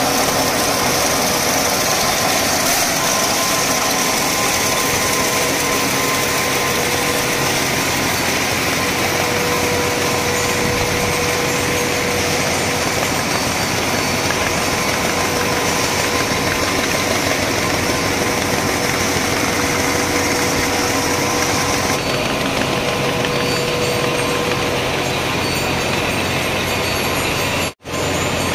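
Welding-electrode production machinery running: a steady mechanical drone and hiss with a faint steady whine. The sound changes character about 22 seconds in and cuts out for a moment near the end.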